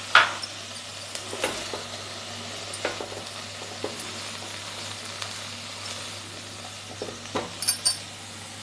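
Chopped vegetables sizzling in butter in a nonstick pan while a silicone spatula stirs them, with scattered scrapes and taps of the spatula against the pan, the loudest just after the start and a short cluster near the end.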